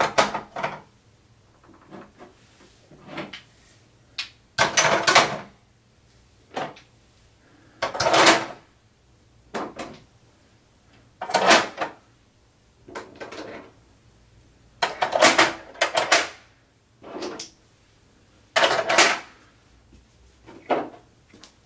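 Chrome-vanadium sockets being set one by one into the painted punched-steel insert of a metal socket-set case: a series of separate metal clinks, roughly one every second or so, each with a short ring.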